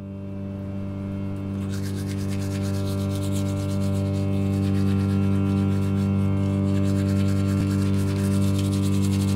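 A low, steady drone that grows louder. About two seconds in, the scratchy scrubbing of a toothbrush on teeth comes in over it and keeps going.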